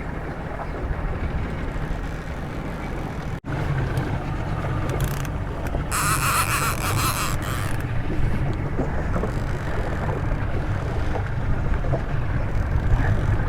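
Motorboat running on the water, a steady low engine hum under wind and water noise, with a brief louder hissing rush about six seconds in.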